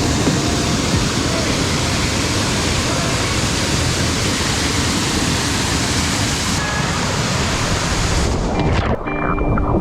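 Waterfall's rushing water, a steady dense roar that thins out about eight seconds in as guitar music comes in.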